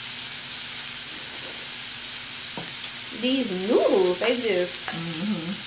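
Shrimp, scallops and beef sizzling on the grill ring of an electric hot pot, a steady hiss. A click comes about two and a half seconds in, and a person's voice is heard briefly past the middle.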